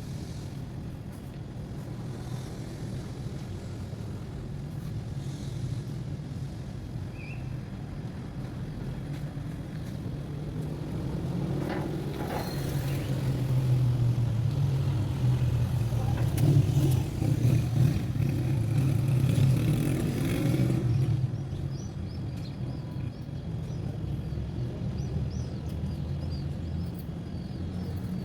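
A car engine running with a steady low hum, getting louder for several seconds midway and then easing off again.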